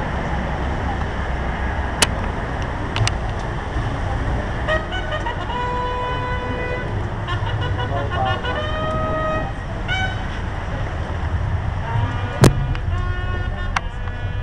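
Brass horns sounding a call at a military ceremony: groups of short notes, then notes held for a second or so, at a few different pitches, over a steady low rumble. There is a sharp click about two seconds in and a louder knock near the end.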